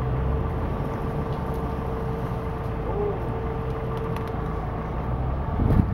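Land Rover Discovery's engine running steadily at low revs as it crawls up a steep dirt slope, a low drone with a faint steady whine over it. A louder jolt comes near the end.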